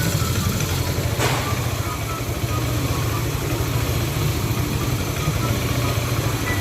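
Yamaha Aerox scooter's single-cylinder four-stroke engine, bored up to 180cc with a CNC cylinder block and 63 mm piston, idling steadily on a test run of the fresh build.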